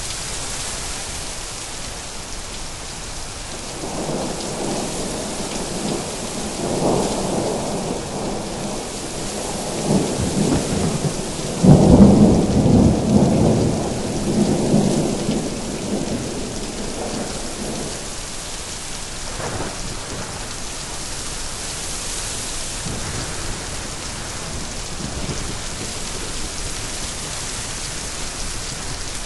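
Steady rain falling, with a long roll of thunder that builds about four seconds in, peaks in a sharp crack around the middle and rumbles away over several seconds.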